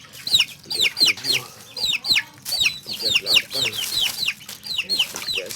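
Birds chirping: a continuous stream of short, high chirps that slide downward in pitch, several a second and overlapping.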